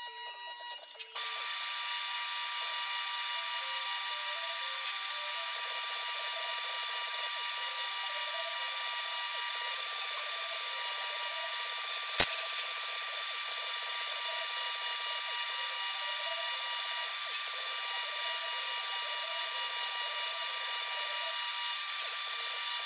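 TIG welding arc tacking sheet-steel spindle parts: a steady hiss with a faint even hum that sets in about a second in. A single sharp click about halfway through.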